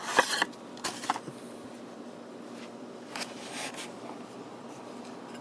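Cardboard box and paper packaging being opened and handled by hand: a few short rustling scrapes near the start and again about three seconds in, over faint room hiss.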